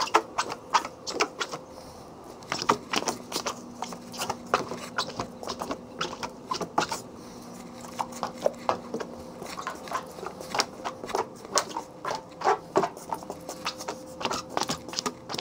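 A hand tool wiping over a car's glass and paint, making irregular rubbing clicks and short squeaks. A faint steady hum sits under them.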